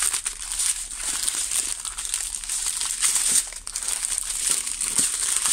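Small plastic zip bags of diamond painting drills crinkling and rustling as they are handled and sorted through, with many small crackles and clicks throughout.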